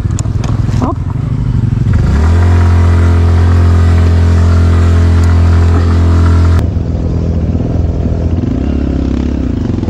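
Suzuki Skydrive Crossover 113cc single-cylinder scooter engine working hard climbing a rocky dirt trail. The revs dip with a few brief clatters in the first second, then rise again and hold steady. After a cut about two-thirds through, a motorcycle engine runs at lower, less steady revs.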